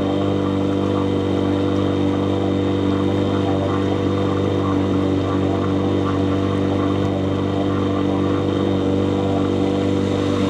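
A small boat's motor running steadily at an even cruising speed, one unchanging drone with no rise or fall in pitch.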